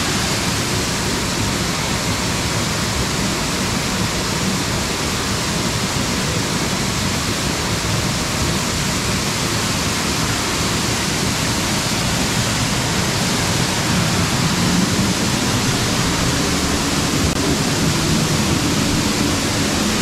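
Tall waterfall plunging onto rocks at close range: a loud, steady rush of falling water.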